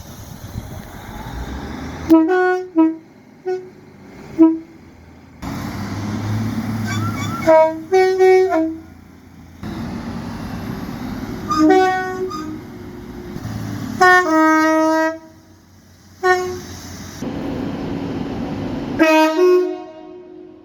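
British train horns sounding in a run of separate clips: a few quick toots, then longer blasts of about a second, some of them stepping down in pitch partway through. Between the blasts there is the steady rumble of trains running.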